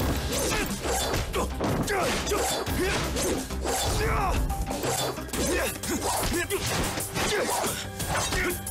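Fight-scene sound effects: a rapid run of punches and body blows landing, with men's grunts and shouts of effort, over dramatic background music.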